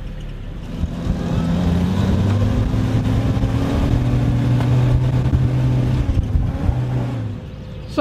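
Willys Jeep engine pulling away and running at low speed, about 15 mph. Its note rises for a second or two as the Jeep gathers speed, then holds steady, and it drops away suddenly near the end.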